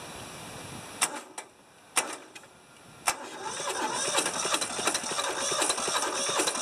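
Toyosha S88 diesel tractor engine cranking, with its rocker cover off. After a few sharp clicks, it starts turning over about three seconds in, in a rhythmic, rising run as it tries to fire on diesel.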